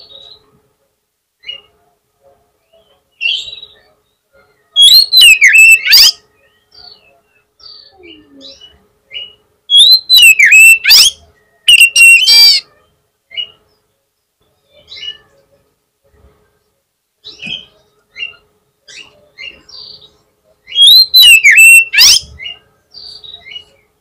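Male Oriental magpie-robin (kacer) singing: four loud bursts of fast, varied whistled notes sweeping up and down, with short single chirps scattered between them.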